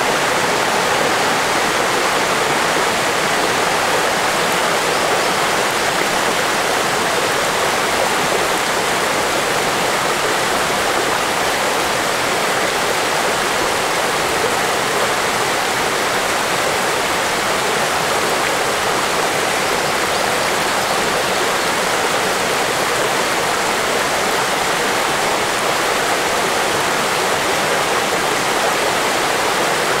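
Shallow mountain river babbling over stones in a small riffle, a steady, unbroken rush of running water.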